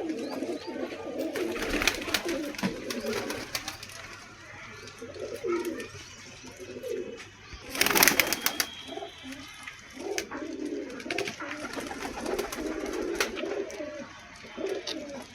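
Domestic pigeons cooing continually, with short clattering wing-beats. The loudest flurry comes about eight seconds in.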